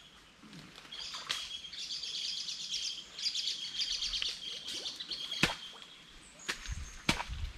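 A songbird singing a rapid run of repeated high notes from about a second in until about four seconds in. Three sharp knocks come from the cutting work in the brush, the loudest about five seconds in.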